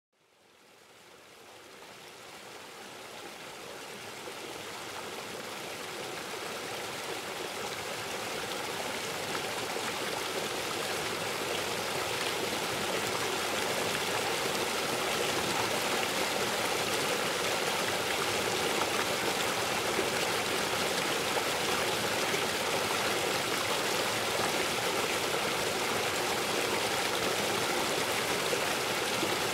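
Rushing water of a river or stream: a steady, even rush that fades up gradually from silence over the first fifteen seconds or so, then holds.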